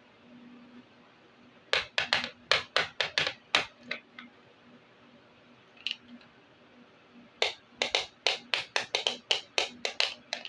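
Small hard plastic toy pieces clicking and tapping as a miniature plastic kitchen set is handled and put together: a quick run of sharp clicks, a single click, then a longer, faster run of clicks near the end.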